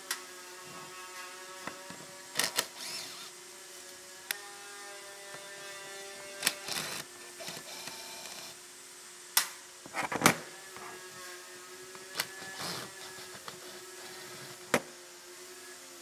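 A small electric motor running with a steady hum and a whine that comes and goes, broken by sharp clicks and knocks now and then, the loudest about ten seconds in.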